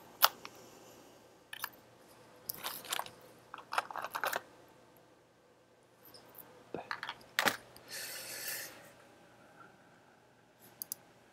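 Quiet, scattered bursts of clicking and crinkly rustling with pauses between them: keyboard typing and small electronic parts being handled.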